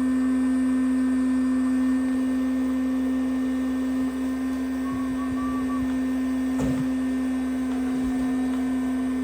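A small electric blower motor running steadily, giving a loud, even hum with one strong held tone. A brief knock comes about six and a half seconds in.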